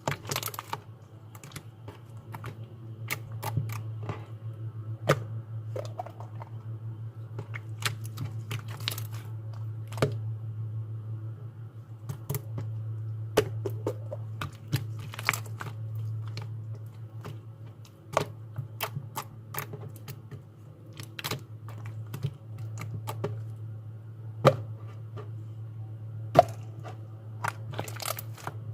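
Slime being squeezed and kneaded by hand, giving irregular sharp clicks and pops, over a steady low hum.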